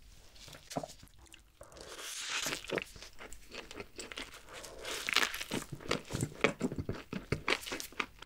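Close-miked biting into a triple cheeseburger, starting about two seconds in, then chewing with many sharp, wet mouth clicks.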